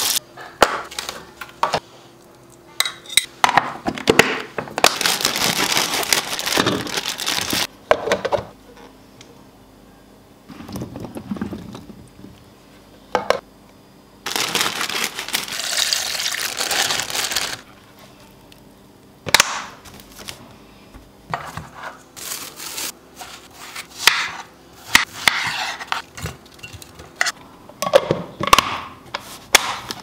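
Plastic and glass food containers and lids clicking and knocking as they are handled, with two stretches of pouring liquid, one of them liquid poured from a jar into a plastic strainer container.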